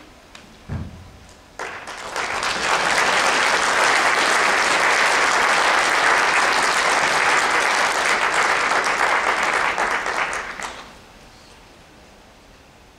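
Audience applauding for several seconds, starting about a second and a half in and dying away near the end, after a single low thump just under a second in.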